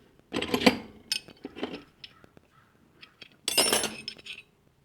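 Old steel hand wrenches clinking and clattering against each other as they are picked up and set down, in three clusters, the loudest near the end.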